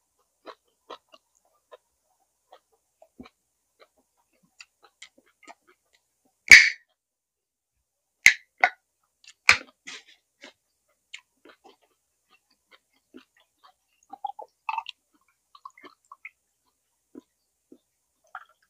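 Close-up eating sounds: scattered wet chewing and mouth clicks and smacks, with a louder sharp click about six and a half seconds in and a few more around eight to ten seconds.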